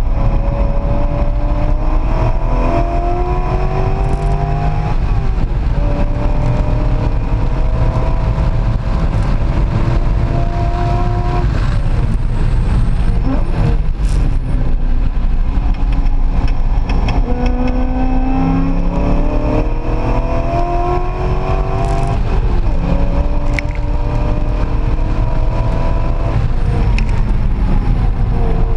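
Chevrolet Corvette's V8 heard from inside the cabin at speed on track, with constant road rumble. The engine note climbs through the revs twice, at the start and again about two-thirds of the way in, dropping back at each shift or lift between steadier stretches.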